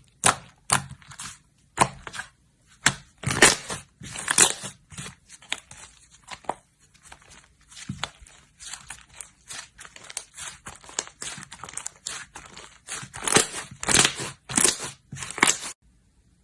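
Slime being squeezed and worked by hand, giving a quick, uneven run of short crackles and crunches that stops abruptly near the end.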